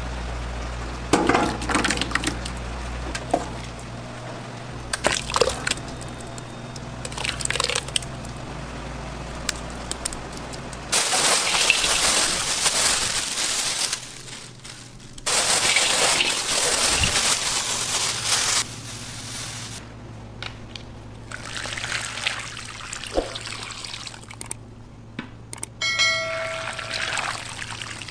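Kitchen liquid sounds: thick sauce and marinade being ladled and poured into steel pans, with clinks of utensils on metal. There are two long stretches of steady rushing pour, about eleven and sixteen seconds in, and a brief squeak near the end.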